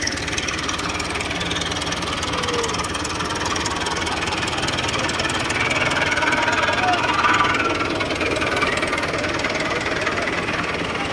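Diesel tractor engine running steadily with a knocking clatter, louder for a couple of seconds past the middle.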